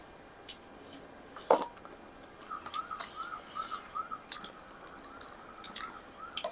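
Sounds of a person eating: soft clicks and one sharp click about one and a half seconds in. Behind them, from about halfway, a faint high chirping note repeats three to four times a second.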